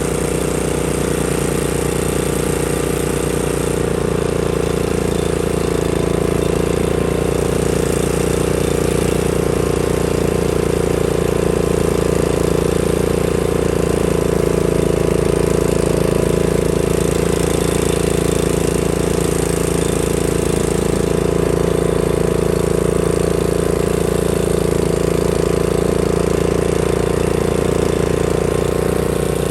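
A mowing machine's engine running steadily at one speed, loud and close.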